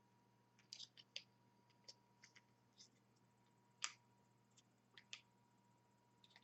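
Faint, scattered clicks and taps of small plastic parts being handled and fitted together, as a figure is set onto its base. The sharpest click comes about four seconds in.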